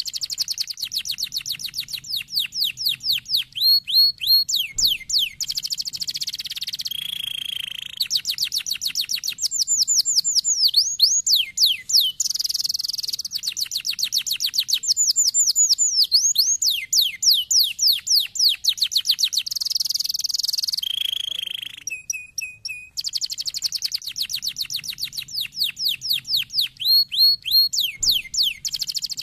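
Domestic canary singing: fast trills of rapidly repeated high notes, each run of one note type before it switches to another, with a few short breaks between phrases.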